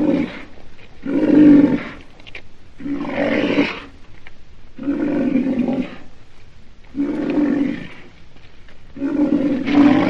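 Rhinoceros giving a series of bellowing calls, each about a second long, repeated about every two seconds.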